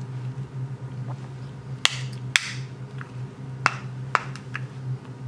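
A handful of sharp clicks and taps from a small glass bottle of etching ground and its screw cap being handled and set down on a tabletop, over a steady low hum.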